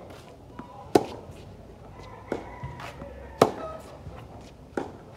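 Tennis ball hit back and forth in a rally on a hard court: two sharp, loud racket hits close by, about two and a half seconds apart, with softer hits and bounces from the far end of the court in between.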